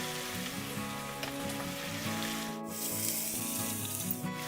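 Onion, garlic and ginger paste frying in hot oil in a pan, a steady sizzle that cuts out briefly twice, over soft background music.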